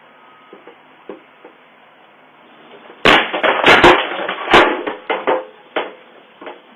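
A faint steady hiss with a few soft ticks, then about three seconds in a sudden run of loud bangs and clattering, five or so sharp strikes in about a second and a half, followed by several softer knocks.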